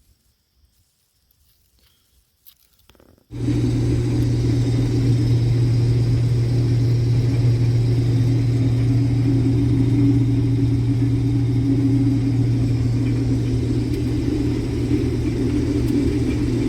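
Near silence for about three seconds, then a sudden jump to a Case IH 2166 combine running steadily while harvesting soybeans, a loud even machine sound that carries on to the end.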